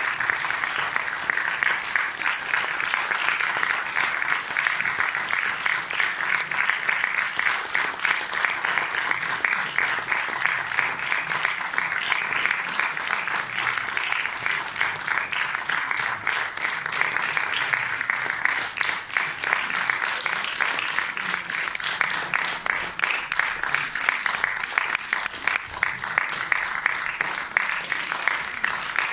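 Theatre audience applauding steadily: a dense, even patter of many hands clapping that does not let up.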